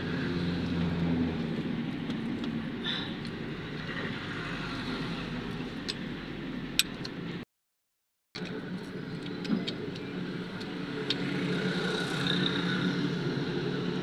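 Steady engine-like running hum with a few sharp clicks from hand tools being handled. The sound drops out completely for under a second just past halfway.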